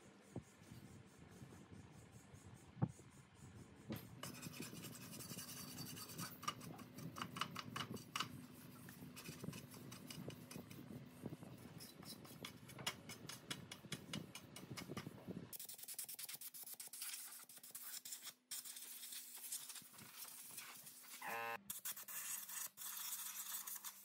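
Faint repeated scratching strokes of a hand brush scrubbing caked dust and dirt off the metal housing and fan cover of an old three-phase electric motor.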